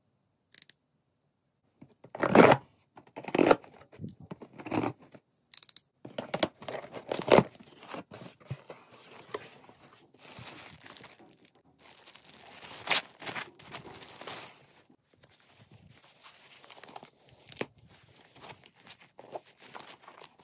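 Packing tape on a cardboard box being slit and torn open, with loud tearing strokes a couple of seconds in, then cardboard flaps, plastic wrapping and tissue paper rustling and crinkling as the contents are unwrapped by hand.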